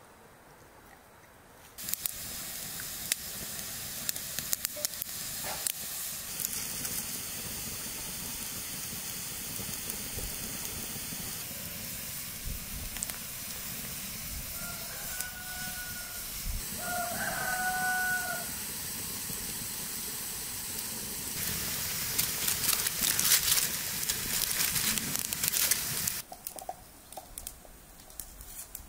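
Wood fire crackling and hissing under a large lidded cooking pot, with many sharp pops. It starts about two seconds in and cuts off abruptly near the end. About halfway through, a rooster crows twice in the background.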